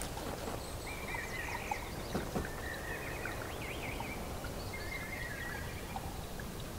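Outdoor ambience: small birds chirping and warbling in short phrases over a steady background hiss.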